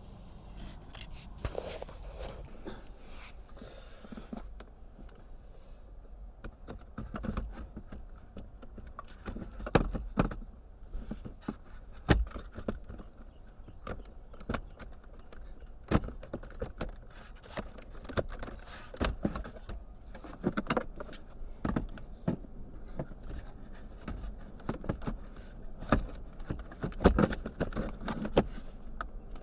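Hard plastic console trim and the navigation controller assembly clicking, knocking and scraping against each other in irregular taps as the part is pushed and worked into the centre console for a test fit; it still catches and won't seat fully.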